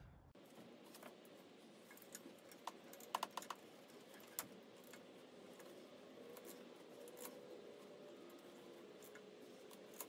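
Faint metallic clicks of a hand wrench working the half-inch bolts on a power steering pump bracket: a quick run of clicks about three seconds in and a single click a little after, over a faint steady hum.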